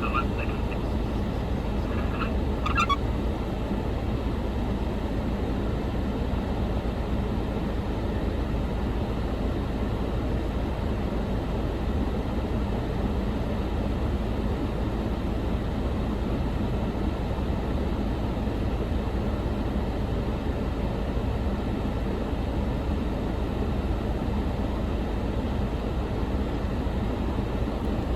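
Road-rail excavator's diesel engine running steadily, a low, even rumble with no change in pitch. A few brief high squeaks come about two to three seconds in.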